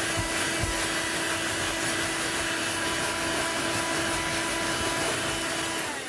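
Bullsone Extreme Power car vacuum cleaner running at full suction as its nozzle pulls dust from the gap beside the seat. It gives a steady whine over a rushing hiss and cuts off just before the end.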